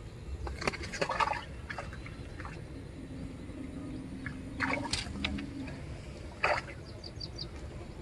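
Scattered rustles and clicks of hands handling a fishing hook, line and bait, loudest about a second in, again near five seconds and at six and a half seconds. A low steady drone runs through the middle, and a few quick high chirps come near the end.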